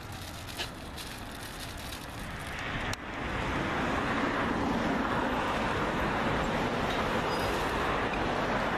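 Steady rushing noise that gets suddenly louder about three seconds in.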